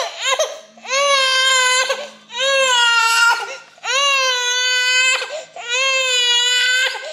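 Baby crying in long, high-pitched wails, about four of them a second or so each, with short gasps for breath between.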